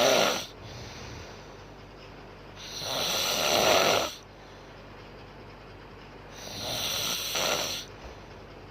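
A woman snoring in her sleep: the end of one snore just after the start, then two more snores about three and a half seconds apart, each lasting about a second and a half.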